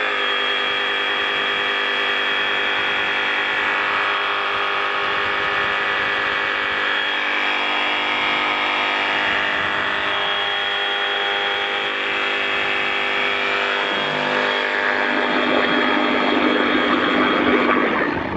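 FLEX FX2271 24-volt cordless reciprocating saw running steadily with no blade fitted. About fourteen seconds in, it is plunged into water and keeps running as the water churns and splashes around it.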